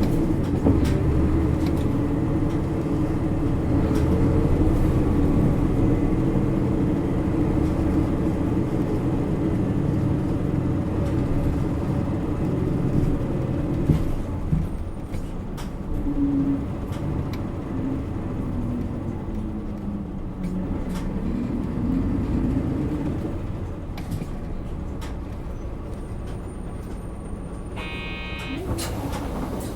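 Isuzu Erga Mio city bus's diesel engine running under load, heard from inside the bus, then easing off about halfway through, with the engine note falling and rising again. A sharp click about halfway through and a short electronic tone near the end.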